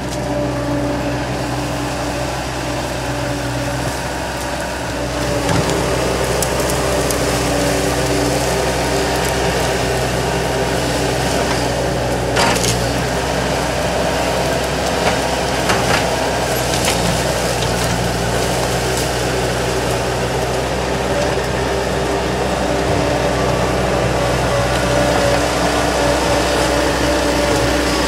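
Bobcat 773 skid-steer loader's diesel engine running steadily as it drives with a bucket load of brush. It gets a little louder about five seconds in, and there are a few sharp knocks about halfway through.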